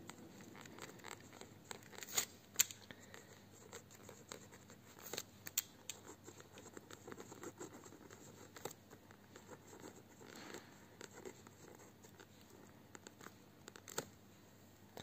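Pen writing in cursive on a lined notebook page: faint scratching with scattered small ticks as the letters are formed, stopping near the end.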